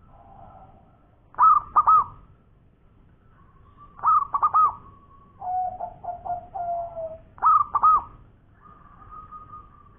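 Zebra dove (perkutut) cooing. Three loud two-note phrases come about three seconds apart, with softer, lower rolling coos between them.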